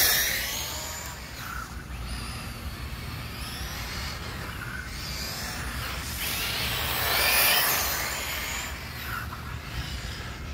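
Arrma Typhon XL RC buggy's brushless electric motor whining with tyre hiss as the car passes close, at the start and again about seven seconds in.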